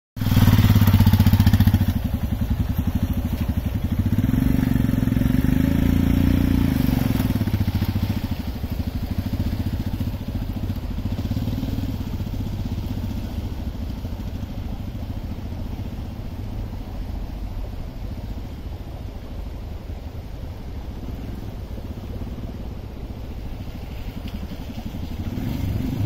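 Royal Enfield Himalayan motorcycle's single-cylinder engine revving as the bike pulls away. The engine fades as the bike rides into the distance and grows louder again near the end as it comes back.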